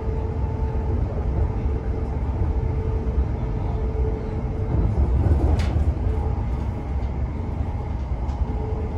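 Interior running noise of a Class 720 electric multiple unit moving along the line: a steady low rumble of wheels on rail. A thin steady tone over the rumble fades about halfway through, and a few faint clicks follow.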